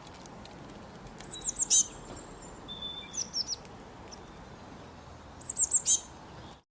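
Small bird chirping: three quick bursts of short, high, downward-sweeping chirps about two seconds apart, over a steady low hiss.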